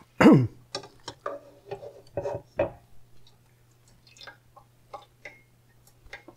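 A slotted spatula knocking and scraping against a cooking pot while a whole boiled cauliflower head is lifted out: a string of light clicks and knocks, with a louder sliding sound just after the start.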